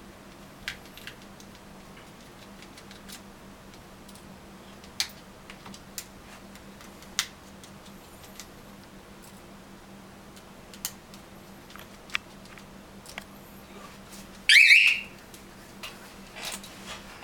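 Small screwdriver backing out the tiny screws that hold an iPhone 3G main board, heard as scattered light clicks and ticks over a faint low hum. About a second and a half before the end comes one loud, brief, rising high-pitched squeak.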